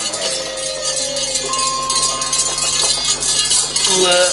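Javanese gamelan accompaniment to a wayang puppet show. Long ringing tones are held over a constant bright metallic jingling.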